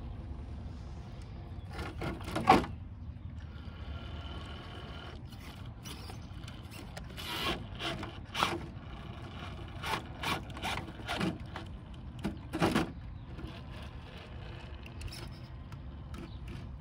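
Traxxas TRX4 RC rock crawler's electric motor and gears whining in short spurts, with sharp clacks and knocks as its tyres and chassis hit the rocks while it tips onto its side. The loudest knock comes about two and a half seconds in, and there are clusters of knocks in the middle.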